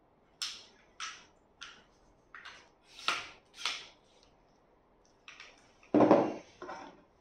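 Aluminum tripod being unfolded and extended: about six sharp clicks and clacks in the first four seconds as its legs and sections snap open, then a louder thud about six seconds in as it is set down on the wooden floor, followed by a last click.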